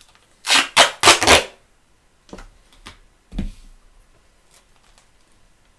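Adhesive tape being pulled off the roll in four quick, loud rips, followed by a few light knocks and a dull thud as it is pressed down.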